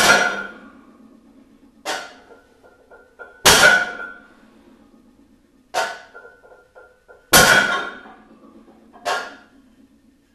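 Weight plates on a plate-loaded one-hand deadlift handle (a Plateau Buster loaded to about 200 pounds) clanging and ringing as the weight is lifted and set back down for repeated reps. A loud metallic clang about every three and a half to four seconds, with a lighter clink between each.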